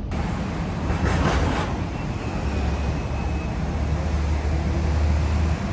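Steady outdoor street traffic rumble, swelling briefly about a second in.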